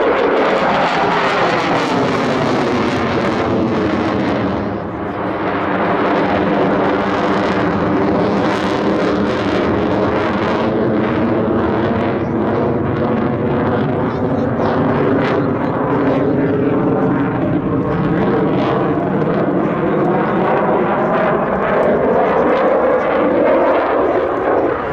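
Dassault Rafale fighter jet flying overhead with its twin jet engines running: a loud, steady jet noise whose tone slowly sweeps down and back up as the aircraft moves across the sky.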